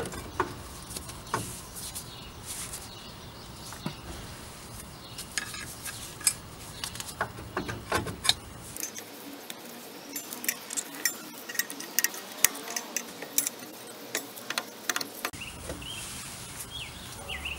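Irregular light metallic clinks and scrapes as a rusty rear drum-brake drum is wiggled and worked off the hub over its wheel studs.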